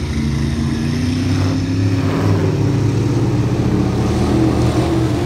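Mud-drag truck's engine held at high revs during a run down the mud pit, its pitch climbing slowly.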